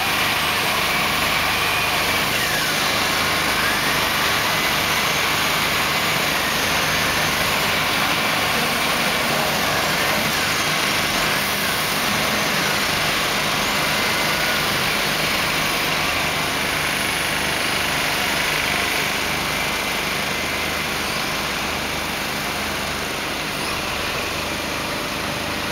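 Heavy truck's diesel engine running steadily as the tractor unit slowly hauls a long, heavy load, easing a little quieter over the last few seconds.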